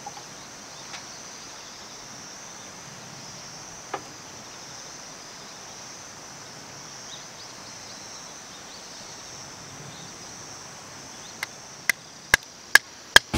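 Steady high chirring of insects over a faint background hiss, with a single click about four seconds in. Near the end come about six sharp knocks, closer and closer together.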